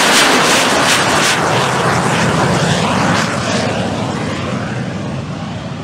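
Soko G-2 Galeb's Rolls-Royce Viper turbojet at take-off power as the jet rolls past and away down the strip. The loud rushing jet noise fades steadily, sweeping in tone as it recedes.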